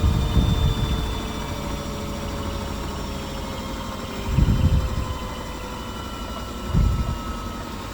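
Beko WMY81283LMB2 washing machine drum slowing down after its spin, the motor's whine falling slowly in pitch. Three low rumbles come through along the way as the drum loses speed.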